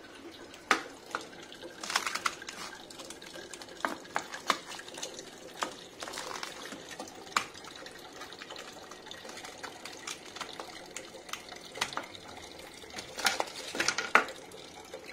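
Ice cubes being taken out and dropped into a drink container: scattered hard clinks and knocks, bunched about two seconds in, about four seconds in and again near the end.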